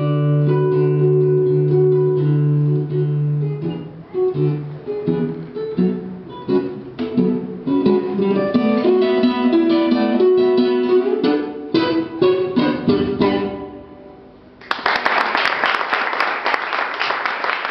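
Acoustic guitar music, single plucked notes and chords over a held low bass. About three-quarters of the way in it dies away, and near the end a dense, noisy sound starts abruptly.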